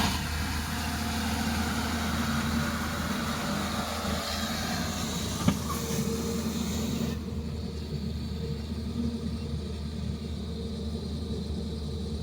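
Excavator's diesel engine running steadily, with a single sharp knock about five and a half seconds in. A high hiss over the engine stops suddenly about seven seconds in.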